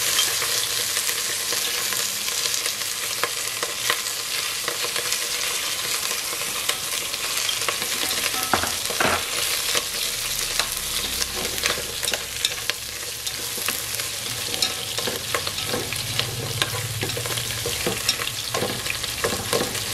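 Lemongrass and mushroom stems sizzling in oil in an aluminium pot, stirred with long wooden chopsticks. A steady frying sizzle runs under frequent short clicks and scrapes as the chopsticks knock against the pot.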